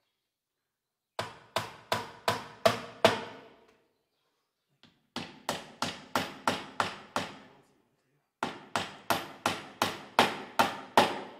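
Hammer driving nails, in three runs of sharp strikes at about three a second with short pauses between runs, each blow ringing briefly: fastening galvanized J-channel to the wooden nailers.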